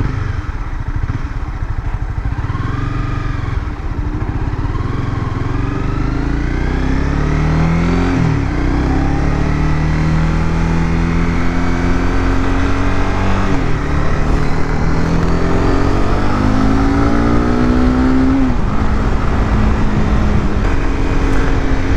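Honda CBR300R's single-cylinder engine pulling away and accelerating through the gears. The pitch climbs in each gear and drops back at three upshifts.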